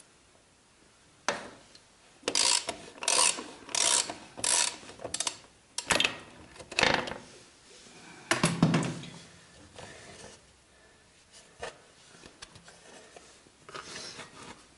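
Ratchet wrench clicking in a run of short rasps, about eight strokes in five seconds, as bolts are undone on a motorcycle's engine casing. About eight seconds in comes one louder, deeper clunk, then faint scraping of metal parts being handled.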